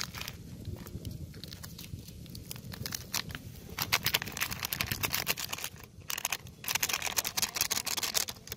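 Plastic instant-coffee sachets crinkling as they are handled and shaken out over a pot, in two spells of dense crackling about four and seven seconds in, over a low steady rumble.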